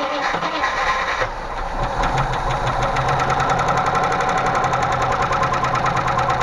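Range Rover Classic's 3.5-litre Rover V8 cranking on the starter and catching a little over a second in, then idling with a fast, even tapping from the hydraulic lifters. The tapping comes from lifters starved of oil: the oil pressure sender was left unscrewed and the oil was pumping out onto the floor.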